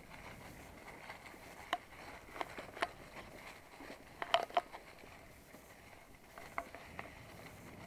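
Dry fallen leaves rustling steadily underfoot or under wheels on a forest path, with scattered sharp cracks of twigs snapping; the loudest is a quick run of three cracks about halfway through.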